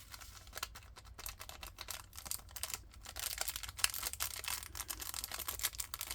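Rapid, irregular clicking and ticking of small plastic diamond-painting drills being poured and handled, with light rustling of small plastic baggies.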